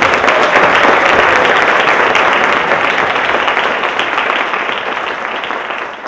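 Audience applauding, dense clapping that fades gradually toward the end.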